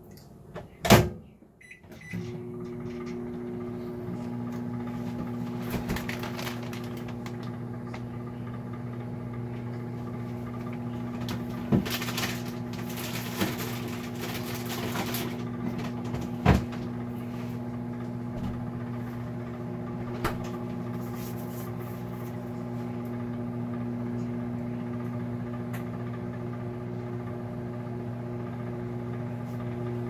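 Microwave oven door shut with a sharp clunk about a second in. The oven then starts and runs with a steady low hum, with a few faint knocks partway through.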